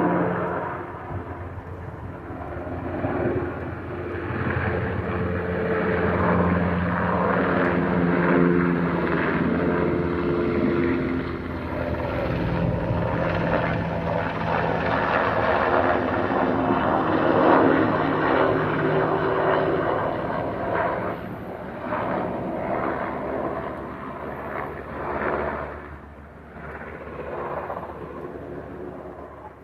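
Military helicopter flying low directly overhead: rapid beating of the rotor blades over the engine's steady whine, the pitch sliding down as it passes, then fading away near the end.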